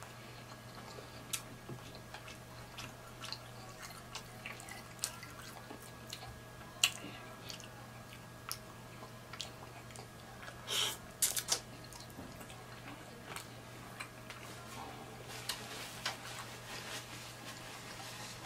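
Close-miked wet chewing and mouth sounds of a person eating boiled shrimp and sausage: scattered smacks and clicks, with a louder cluster about eleven seconds in. A faint steady hum sits underneath.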